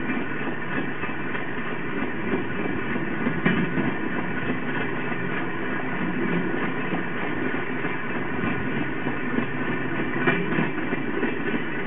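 Rail trolley's steel wheels rolling steadily along old jointed track, with two sharper clicks from the rails, one a few seconds in and one near the end.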